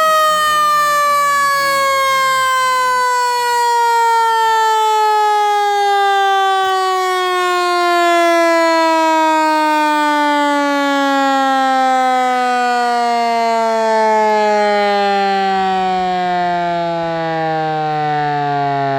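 Sterling 12-volt mechanical siren winding down: its wail slides slowly and smoothly down in pitch, from a high steady note to a low moan, without breaking off.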